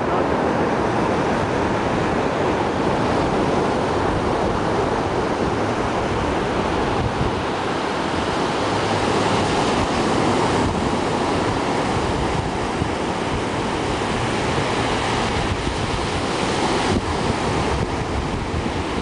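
Rough surf breaking and washing up a sandy beach: a steady rushing, with wind buffeting the microphone.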